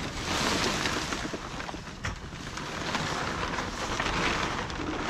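Plastic tarps covering a car rustling and crinkling, a hissing, crackly noise that swells twice.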